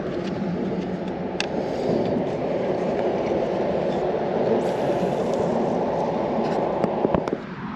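Steady rumble of a train crossing a tall steel truss bridge, cutting off fairly suddenly near the end, with a few faint clicks over it.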